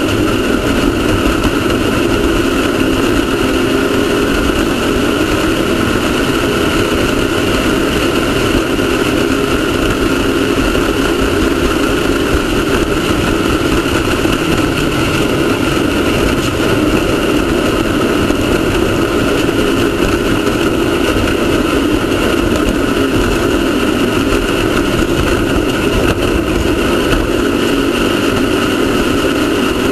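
Off-road race car's engine running continuously, its pitch wavering slightly, over a steady wash of wind and driving noise.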